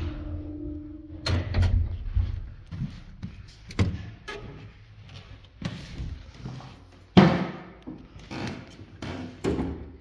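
A 1970s Leuthold passenger lift stopping: a steady hum for about a second, then a clunk as the car halts. The swing landing door is pushed open and footsteps follow on wooden stairs, with irregular knocks and a loud thud about seven seconds in.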